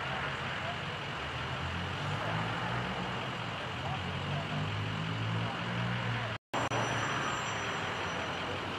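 Steady road-traffic noise with a low, wavering engine hum from idling vehicles. The sound drops out completely for a moment about six and a half seconds in.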